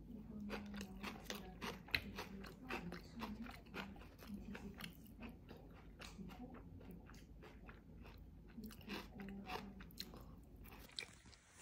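A person biting and chewing crispy fried chicken thigh close to the microphone, the crust crunching in many quick crackles.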